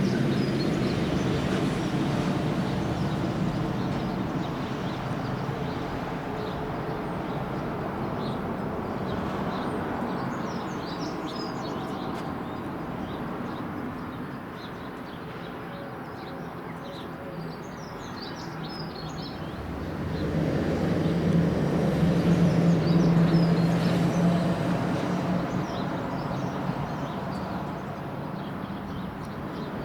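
Distant jet drone of a Boeing E-3A Sentry AWACS's four TF33 turbofans as it circles overhead: a steady rumble with a low hum that eases off in the middle and swells loudest about two-thirds through. Small birds chirp in the background.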